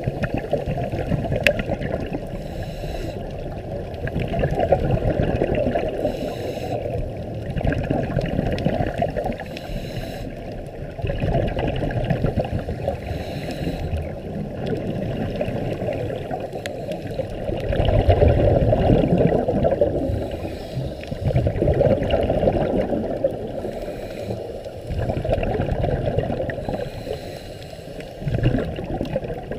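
Muffled underwater rumble of water movement and scuba divers' exhaled bubbles, swelling and fading every few seconds.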